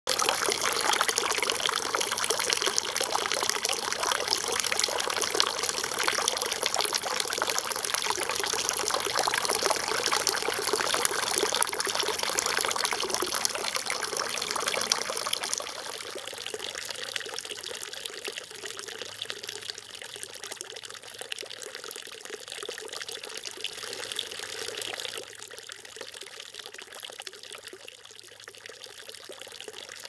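A thin jet of water splashing steadily into a stone fountain trough. The splashing steps down to a quieter level about halfway through, and again a few seconds before the end.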